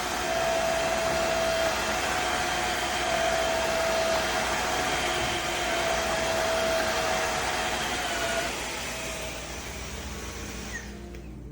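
Tineco Floor ONE S7 Pro cordless wet-dry vacuum running: a steady rush of suction with a steady whine over it. It eases off about eight seconds in and cuts off near the end.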